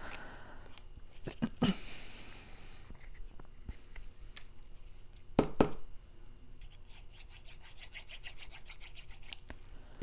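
Cardstock being handled and pressed down by hand: soft rubbing and rustling of paper, a couple of sharp taps, a louder double tap about five seconds in, then a quick run of small scratchy strokes as the paper is rubbed flat.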